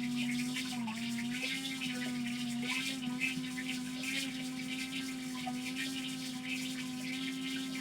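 Electric blender switched on, its motor running at a steady hum while it chops guava leaves in a little water, with rattling and churning from the jar. The motor's pitch sags briefly about a second in, then holds steady.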